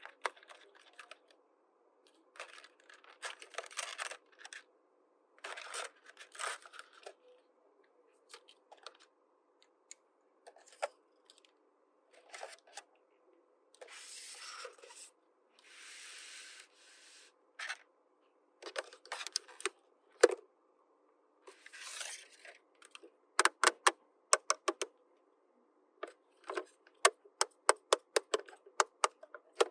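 Hands unboxing a miniature plastic toy playset: plastic packaging rustled and torn in short stretches, with small plastic pieces clicking and tapping, in quick runs of clicks near the end.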